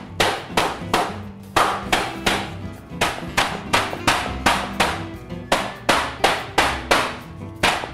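Flat metal meat pounder slapping down again and again on thin beef slices under plastic wrap on a cutting board, flattening and tenderizing them. The strikes come about two to three a second, quickening toward the end, over background music.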